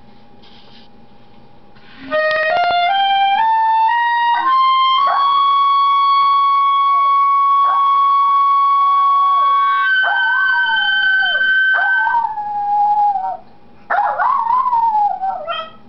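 A clarinet plays a stepped rising run into a long held high note and then a higher one, and an American Eskimo dog howls along in wavering, falling howls. After the clarinet stops, the dog howls once more on its own near the end.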